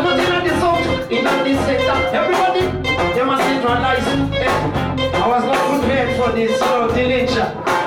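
Live reggae music: a band's bass and drums in a steady rhythm, with a vocalist singing into a microphone over it through the PA.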